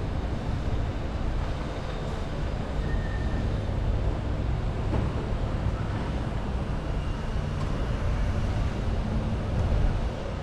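Steady low rumble of wind on the microphone and road noise as the camera moves slowly along the street, with no distinct event standing out.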